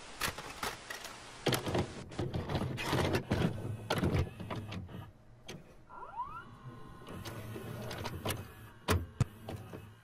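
VCR loading and playing a VHS cassette: a run of mechanical clicks and clunks as the tape is taken in, then a rising motor whine about six seconds in as playback starts, with two more sharp clunks near the end.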